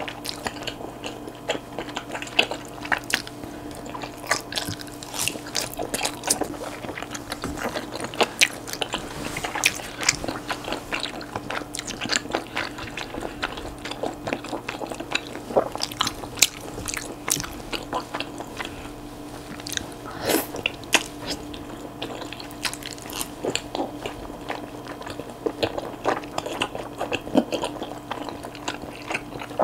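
Close-miked eating of chewy wide Chinese glass noodles: wet slurps, chewing and many sharp mouth clicks and smacks throughout, over a faint steady hum.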